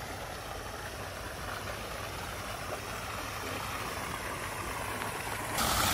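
Water gushing from a tubewell outlet pipe into a flooded paddy field channel, a steady rushing that grows louder near the end.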